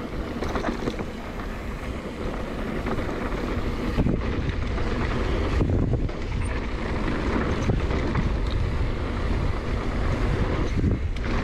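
Wind buffeting a helmet or bike-mounted action camera's microphone while riding a mountain bike down a trail: a steady rushing noise with a few knocks from the ride, a sharp one about four seconds in.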